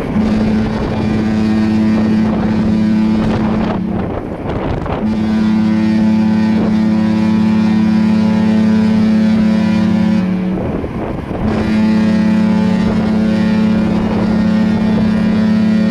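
Cruise ship's horn sounding three long, deep blasts, each about four to five seconds long with short pauses between.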